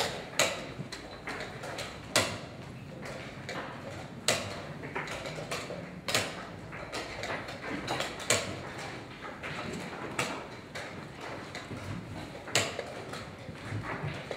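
Chess pieces being set down and chess clock buttons being pressed in a blitz chess hall: a sharp knock about every two seconds, with many fainter clicks between them.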